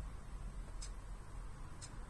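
Citizen Karakuri KC2610-2 clock ticking once a second, two sharp ticks of the second hand stepping, running again after its overhaul.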